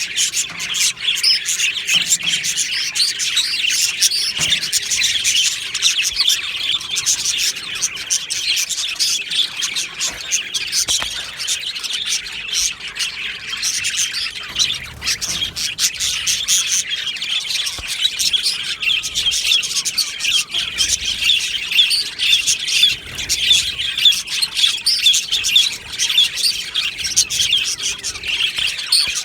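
A colony of budgerigars chirping and chattering together, many birds at once, a continuous dense warbling with occasional squawks.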